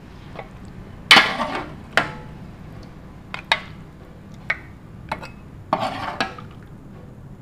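A steel ladle clinking and scraping against a metal cooking pot and a hammered metal serving plate while gravy and meat are spooned out: a string of separate sharp clinks, the loudest about a second in, with a longer scrape near the end.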